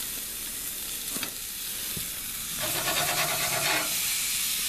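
Raw hamburger patties sizzling on a hot grill in a steady hiss, with two light clicks. For about a second past the middle, a louder rough, buzzing noise sounds over the sizzle.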